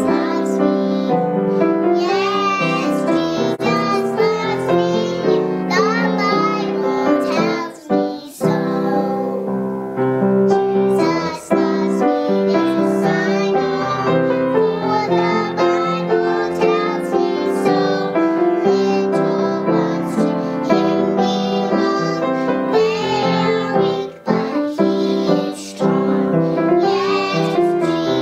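Young girls singing a song together to piano accompaniment, with two brief breaks between phrases.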